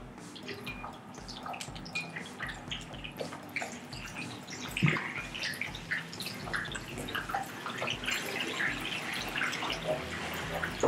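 Chicken wings frying in hot oil in a wok: a steady sizzle with many small crackling pops, growing louder in the second half.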